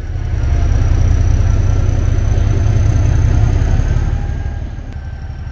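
Narrow-gauge diesel locomotive's engine running as it moves along the track. The deep drone builds over the first few seconds, then fades as the locomotive draws away, with a faint high whine over it.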